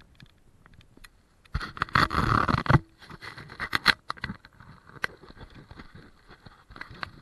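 Handling noise from the camera being picked up and turned in the hand: a loud rubbing scrape about a second and a half in that lasts about a second, then scattered knocks and clicks.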